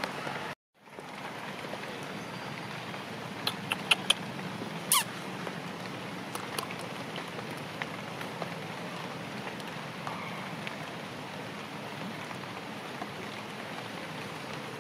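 Steady rain, an even hiss. About half a second in it cuts out for a moment. A few sharp clicks come around four seconds in, then a quick falling squeak.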